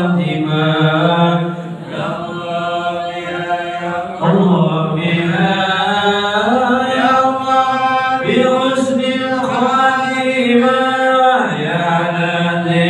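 Islamic devotional chanting: a voice holds long, melodic notes that step and glide slowly between pitches, somewhat quieter for a couple of seconds before swelling again about four seconds in.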